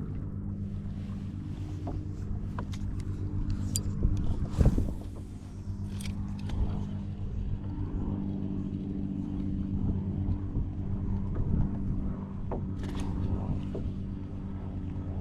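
A boat motor running steadily at an even pitch, with a few short knocks and clicks over it.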